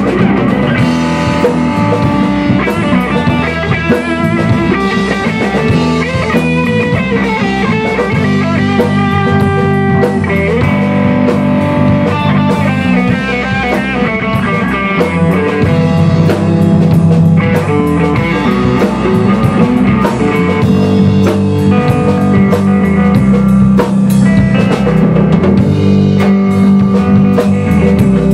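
Rock band playing an instrumental passage: electric guitar, bass guitar and a drum kit, with no vocals.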